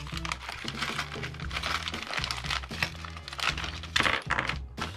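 A plastic parts bag crinkling and crackling as hands open it and take out small plastic parts, over background music with a steady bass line.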